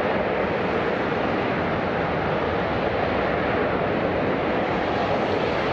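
Jet airliner engines making a steady, even roar with no distinct tones or changes in level.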